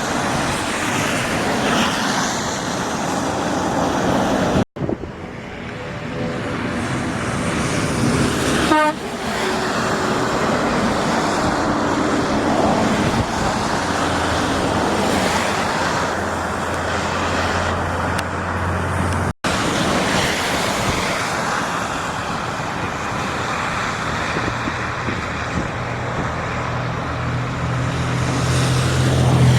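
Continuous noise of heavy vehicles on the move, with a horn sounding at some point and two very short dropouts to silence.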